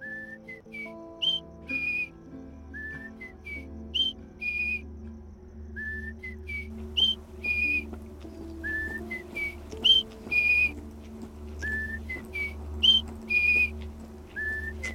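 Eerie horror score: a short whistled phrase, a held note followed by quick rising notes, repeats about every three seconds over low sustained notes and a deep drone.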